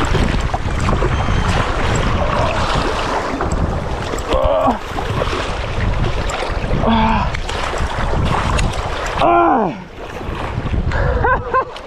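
Wind buffeting the microphone over fast-flowing river water, with a hooked trout splashing and thrashing at the surface close in.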